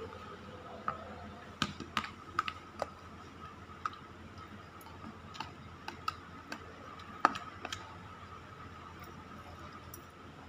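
Metal spoon and fork clinking and scraping against a plate during a meal of fried rice: irregular sharp clicks, the loudest about seven seconds in, over a faint steady hum.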